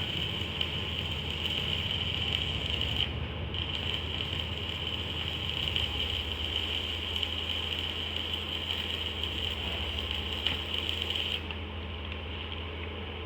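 Red-brick press machine running steadily, a low hum under a high steady whine; the high part drops away near the end.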